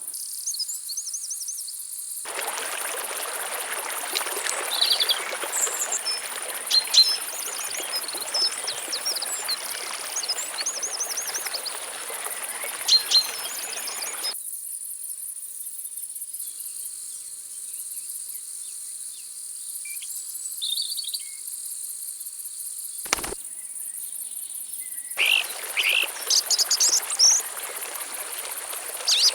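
Steady high-pitched insect buzzing with small birds chirping over it. A rushing noise comes in for two long stretches, starting and stopping abruptly, and there is a single sharp click about three-quarters of the way through.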